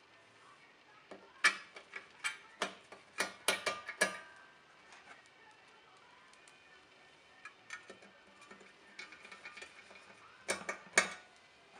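Sharp metallic clicks and taps with a short ring, from a screwdriver and small screws against the aluminium case of a flight data recorder during disassembly. There is a run of about nine between one and four seconds in, a few faint ticks after it, and three quick clicks near the end.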